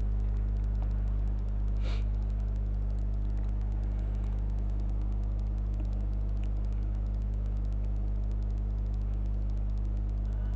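Steady low hum and rumble, unchanging throughout, with a brief soft noise about two seconds in.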